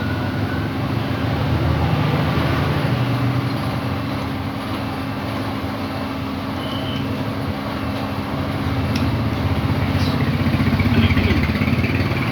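An engine runs steadily with a low hum, swelling louder about two seconds in and again from about eight to eleven seconds.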